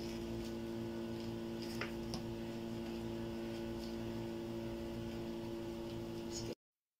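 Steady low electrical hum of a small room, with a couple of faint clicks; it cuts off abruptly to dead silence near the end.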